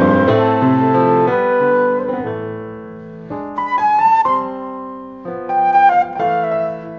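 Jazz duet of grand piano and concert flute. The piano plays chords beneath sustained flute notes, thins out to a softer passage in the middle, then comes back with struck notes.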